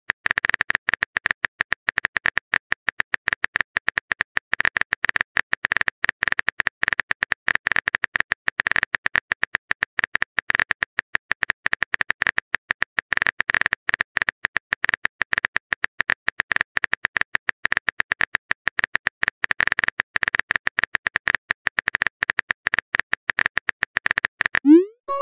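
Simulated keyboard typing from a texting app: a rapid, steady patter of keystroke clicks while a long message is typed. Near the end a short pop rises in pitch as the message is sent.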